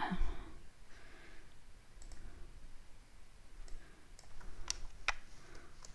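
A few sharp clicks from a computer mouse and keyboard, spaced out, with the two loudest close together near the end.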